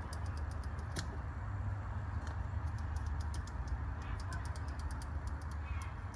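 Hand fluid pump being worked in and out while filling a PTU with gear oil, giving rapid, irregular light clicks, several a second, over a steady low rumble.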